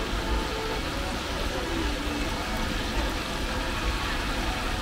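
Hot oil bubbling and sizzling steadily in a large pan as battered capelin with roe deep-fries, over a low steady rumble.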